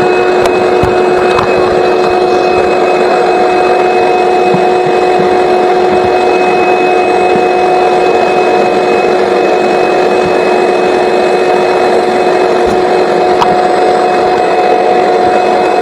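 Electric motor of the vent-cleaning gear running steadily with a constant whine over a dense rushing noise, as the rotary brush and vacuum clear packed lint from a clogged dryer vent.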